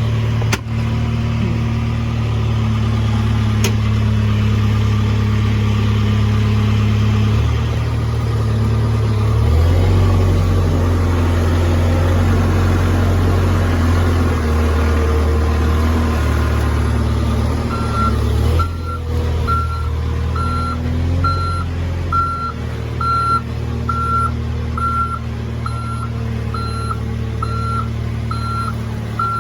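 A heavy diesel engine runs steadily, its pitch and load shifting several times. About 18 seconds in, a reversing alarm starts beeping about once a second.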